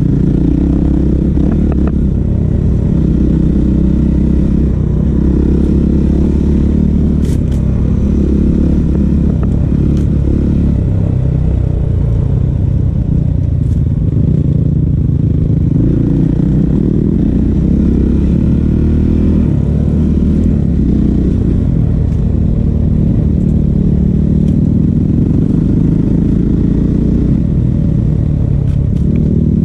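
Honda CRF450L's single-cylinder four-stroke engine running under way on a trail ride, the revs rising and falling repeatedly as the rider works the throttle.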